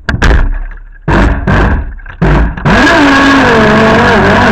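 RC boat's motor given a few short bursts of throttle, each dying away quickly, then running continuously at high power from about two and a half seconds in, its pitch wavering.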